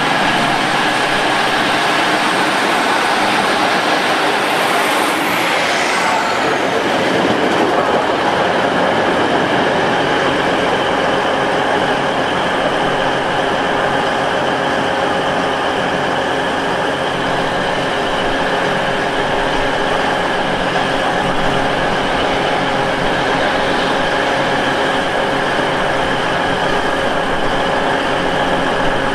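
Diesel multiple unit's engines running steadily, with a brief high squeal sliding down in pitch about five seconds in.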